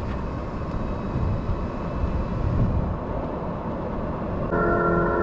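Ford F-150 PowerBoost hybrid rolling in all-electric mode with its pedestrian-alert speaker bypassed: only low tyre and road noise, with no tone. Near the end a steady chord of several whining tones starts: the fake electric motor sound from the speaker under the front bumper.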